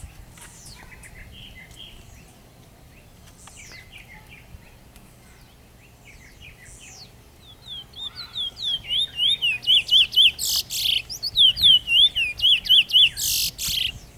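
Caged Trinidad bullfinch singing: soft scattered chirps at first, then about halfway through a loud, fast song of repeated sweeping whistled notes, broken twice by a harsh noisy burst.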